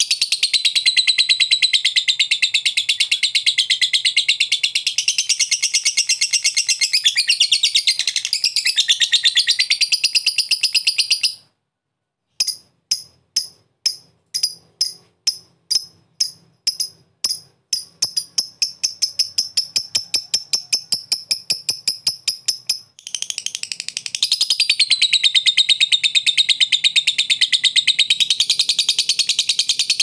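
Fischer's lovebird giving its long, rapid, high-pitched chattering song (the 'ngekek'). It breaks off about eleven seconds in. After a second's pause comes a run of separate sharp chips, about two a second at first and then speeding up, before the dense chatter resumes about 23 seconds in.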